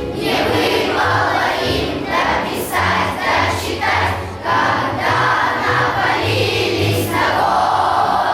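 A group of voices singing a song in Russian as a choir, over a backing track with steady low notes.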